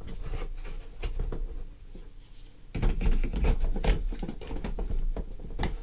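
Parkside 20 V cordless battery being handled and slotted into a hard plastic tool case: a string of light knocks, clicks and scrapes, plastic against plastic.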